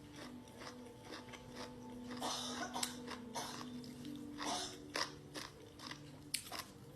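Close-miked chewing and biting of crunchy pickled chicken feet and rau tiến vua (pickled celtuce stems), with irregular sharp crunches.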